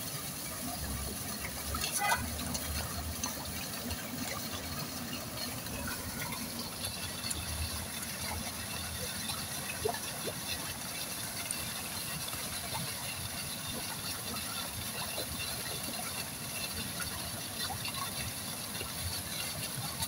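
Pond water splashing and sloshing steadily as a packed crowd of koi churns at the surface, with a few small sharp splashes.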